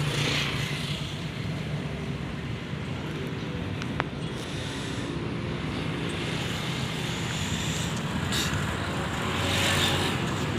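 Motorcycle running steadily while riding, with road and wind noise, and a single brief click about four seconds in.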